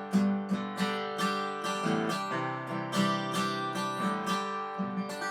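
Background music: strummed acoustic guitar chords at an even beat.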